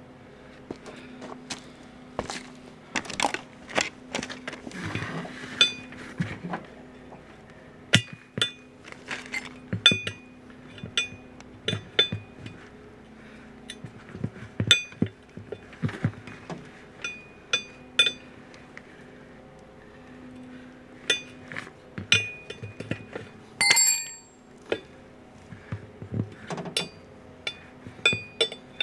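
Metal hand tools clinking and clanking: a long run of sharp, irregular strikes, many ringing briefly. One louder ringing clang comes about five seconds before the end.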